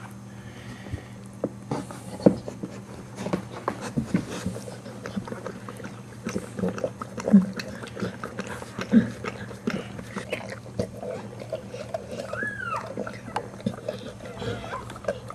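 An American Staffordshire Terrier bitch licking at her newborn puppy's wet birth sac during whelping, making irregular wet smacking and licking clicks. A short falling whimper comes near the end.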